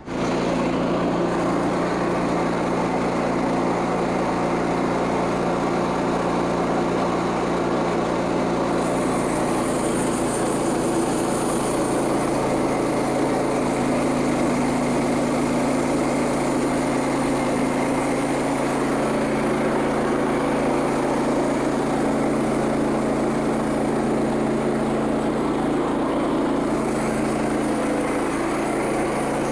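Small gasoline engine of a Frontier OS27 bandsaw sawmill running steadily at high speed, coming in suddenly at the start; its pitch shifts slightly about halfway through, and there is an added high hiss for a few seconds about nine seconds in.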